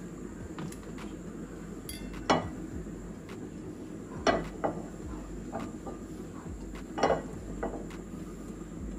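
Kitchen utensils knocking and clinking against dishes, five or six sharp strikes spread out with fainter ticks between, over a steady low background hum.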